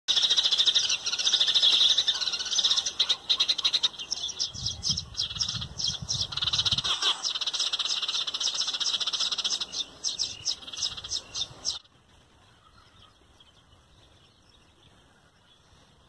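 Many small birds chirping in a loud, dense chorus of rapid high notes, which stops abruptly about twelve seconds in.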